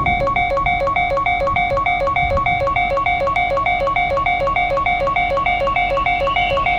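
Japanese railroad crossing alarm ringing steadily: a fast, even "kan-kan" of two alternating electronic bell tones, with a faint high whine joining near the end.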